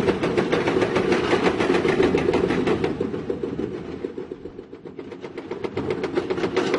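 Tracked heavy earthmoving machine running: a diesel engine hum with a fast, even clatter. It drops in level a few seconds in, then builds back up.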